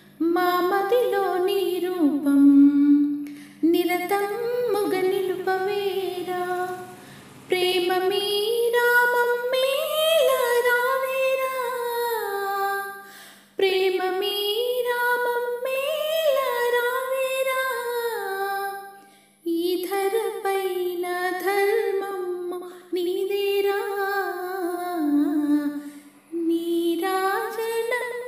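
A woman singing a slow devotional song in long, gliding phrases of a few seconds each, with short breaks between them. A steady low drone runs beneath the voice.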